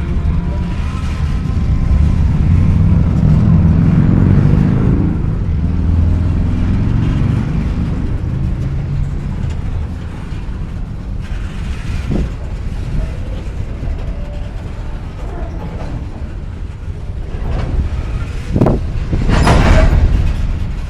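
Empty coal train of open hopper cars rolling on the track. It is a heavy low rumble for the first half, then quieter, with a couple of sharp knocks and a louder rush of noise lasting about a second near the end.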